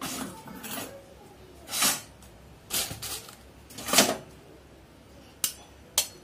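Kitchen utensils knocking and scraping against a metal mixing bowl while flour is added: a string of short scrapes and knocks, then two sharp clinks near the end.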